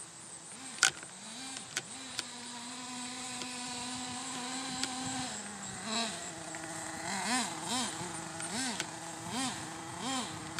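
Small nitro engine of an Ofna RC truck running. It holds a steady note for a few seconds, then revs up and down in quick blips, about two a second. A sharp click comes about a second in.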